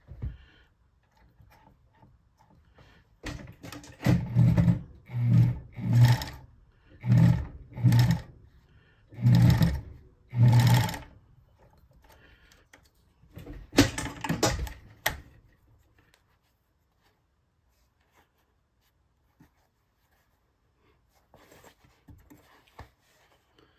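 Old Bonis Never Stop fur sewing machine run in short spurts, about eight in a row, as a missed stretch of seam is stitched over again; a brief clatter follows a few seconds later, then it stops.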